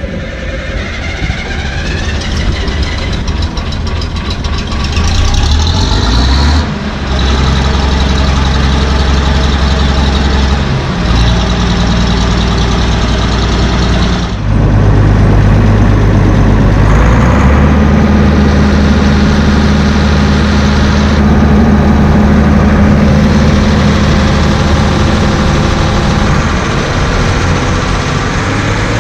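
Bizon Z056 combine harvester's SW-400 diesel engine running just after its first cold start after winter. Its speed climbs over the first few seconds, then shifts in steps a few times before it settles into a steady run.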